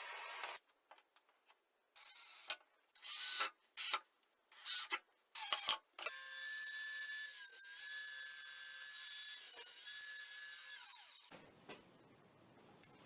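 Handheld power tool running in short bursts, then steadily for about five seconds with a brief dip in pitch, and stopping near the end.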